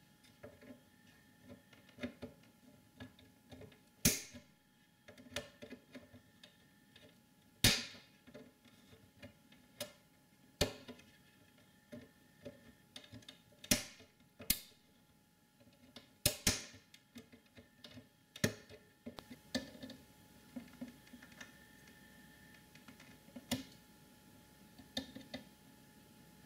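Side cutters snipping apart the old IDE connector on a Power Mac G4 motherboard: sharp snaps every few seconds, about seven in all, with smaller clicks and ticks of the tool between them.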